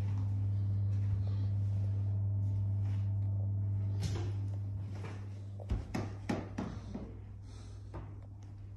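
A steady low electrical hum, strongest for the first few seconds and then fading, with a few short knocks and taps after about four seconds.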